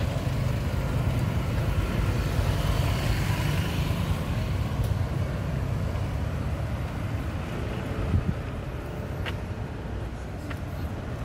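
Road traffic going past in a steady rumble, with a short thump about eight seconds in.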